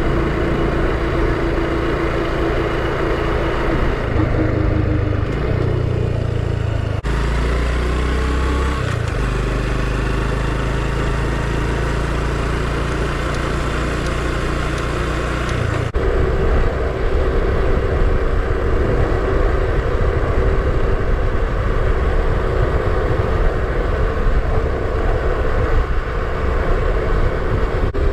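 Honda Super Cub's single-cylinder four-stroke engine running on the move, with road and wind noise; the engine note steps to a new pitch a few times.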